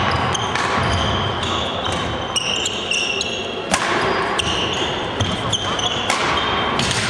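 Badminton rally: rackets hitting the shuttlecock with sharp cracks, about one every second or two, and sports shoes squeaking on the wooden court floor between the hits, in a large sports hall, with faint voices in the background.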